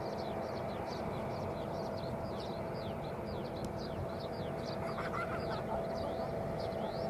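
Embraer E170 jet's GE CF34 turbofans running as the airliner rolls out and slows on the runway: a steady distant rumble with a held whine. Rapid, high, falling chirps run throughout over it.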